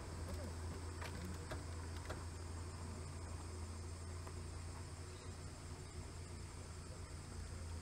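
A steady chorus of forest insects chirring high up, over the low, steady hum of an idling engine.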